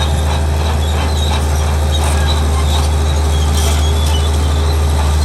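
Komatsu D65E crawler bulldozer's diesel engine running steadily, with faint metallic squeaks and clanks from its steel tracks.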